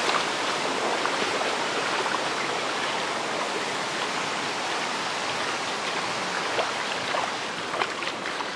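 Muddy floodwater from a violent thunderstorm rushing across a flooded parking lot in a steady wash, with a few faint ticks in the second half.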